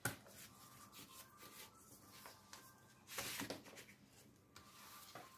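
Faint handling of a vinyl record sleeve: a click at the start, then a brief rustle of paper or card about three seconds in.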